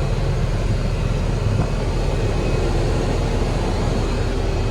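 Terex TLB840R backhoe loader's diesel engine idling with a steady low rumble.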